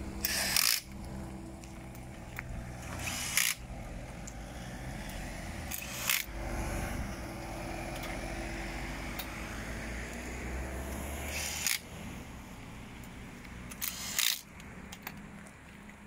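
A power tool on the wheel nuts of a rally car, run in five short bursts of under half a second each during a roadside wheel change. A low steady hum lies under it.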